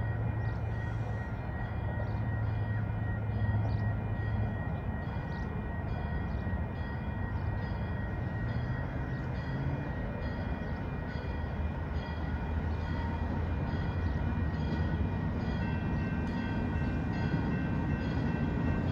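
Diesel locomotive of a passenger train approaching slowly, its engine making a steady low hum that shifts in pitch a couple of times, with a faint steady high whine above it.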